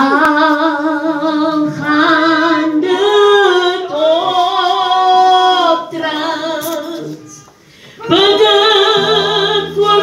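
A woman singing unaccompanied into a microphone, with long held notes with vibrato in phrases and a short pause before the last phrase. Low steady tones come in under her voice near the end.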